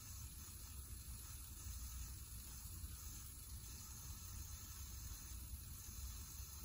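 Faint steady low hum with a soft, even hiss over it.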